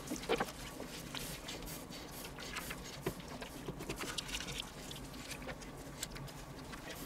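Soft, irregular clicks and squishes of nitrile-gloved hands folding a raw bacon weave over its meat filling on a wooden cutting board, over a low steady hum.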